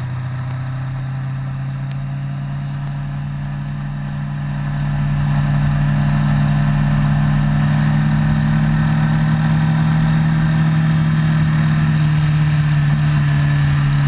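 Motorcycle engine running at road speed, getting louder and a little higher in pitch about five seconds in as it accelerates, then holding a steady drone.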